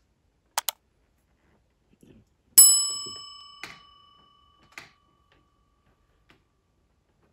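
Subscribe-button animation sound effects: a quick double mouse click, then a bright bell ding that rings out and fades over a second or so, followed by two softer clicks. Faint handling of plastic Lego parts can be heard underneath.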